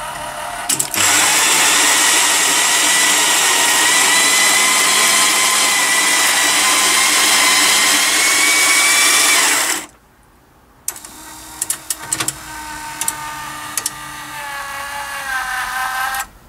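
The grinder of a bean-to-cup coffee machine grinds beans for about nine seconds, a loud whirring whose pitch slowly rises, then cuts off suddenly. After a short pause the machine clicks a few times and a quieter mechanical hum starts as brewing begins.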